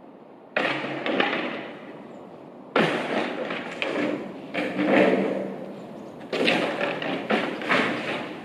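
Building demolition debris crashing down, about five sudden loud crashes a second or two apart, each fading over a second or so.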